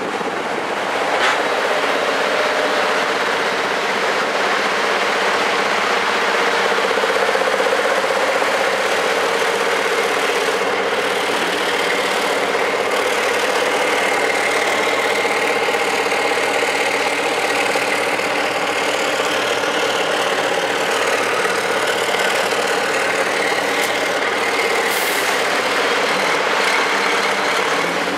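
MAN TGS race truck's diesel engine idling steadily, without revving.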